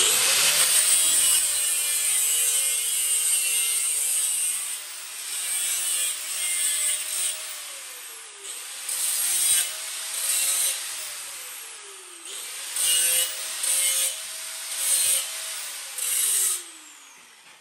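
Handheld angle grinder cutting a round sheet-metal air-intake breather lid. The motor whine runs steadily, with grinding rasps coming and going as the disc bites into the metal. Three times the trigger is let off and the whine falls in pitch as the disc winds down: the first two times it starts up again, and the third time, near the end, it dies away.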